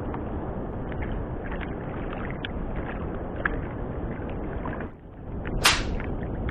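Sea water lapping and washing against a small wooden fishing boat, with wind, as a steady rushing noise dotted with small ticks. It drops away briefly a little before five seconds in, then comes one short, sharp, louder burst like a slap of water.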